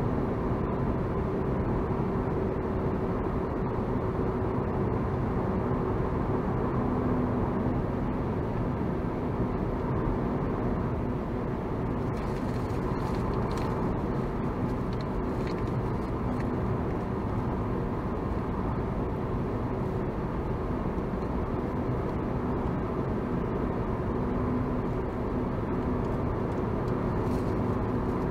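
Steady road noise inside a moving car: tyre roar and engine hum, with a couple of even hums running through it and a few faint ticks partway through.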